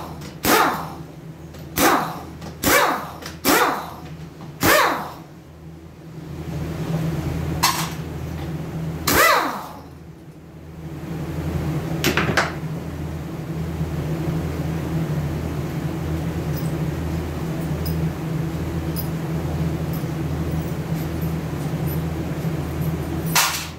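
Compressed air from a handheld blow gun fired in short blasts, about one a second, into an automatic transmission's case and valve body, a few more spaced-out blasts following. About halfway through a steady machine hum sets in and runs under the rest.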